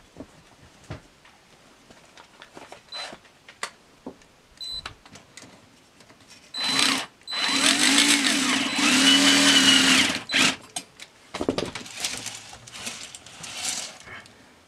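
Black & Decker cordless drill driving a screw into the robot's metal frame. After a few light clicks, the drill starts about six and a half seconds in with a short burst, then runs for about three seconds with its pitch wavering, and gives a shorter burst or two after that.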